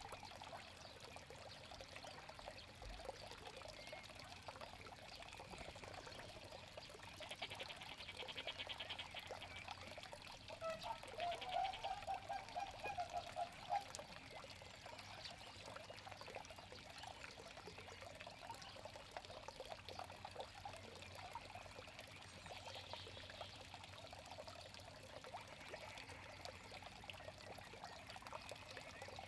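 Water steadily trickling and pouring in an aviary pond. About eight seconds in, a fast high trill sounds for a couple of seconds, followed by a short run of quick, lower pulsed calls.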